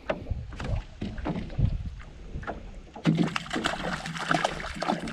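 Irregular knocks and rattles on a small fishing boat while a caught fish is handled. From about three seconds in, a steady low hum runs for about two seconds.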